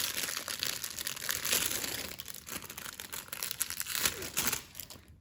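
Plastic packaging crinkling and rustling as it is handled and opened, a dense crackle that dies away near the end.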